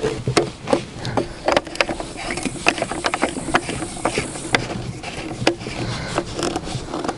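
Irregular plastic clicks, knocks and scraping as an electric boat-inflation pump and its corrugated hose are handled and set up on the boat's PVC fabric. The pump is not running.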